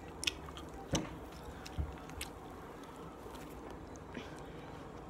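Slime being kneaded and stretched by hand, making soft wet clicks and squishes, with a few sharper clicks in the first two seconds. The slime is clumpy and is being worked to smooth its texture.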